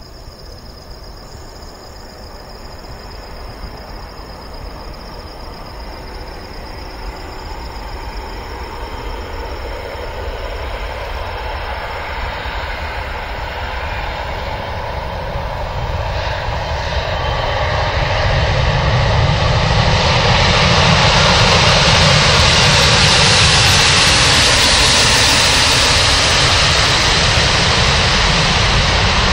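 Airbus A340's four jet engines on landing, a steady jet roar that grows from faint to loud as the airliner nears and reaches the runway, loudest about two-thirds of the way in.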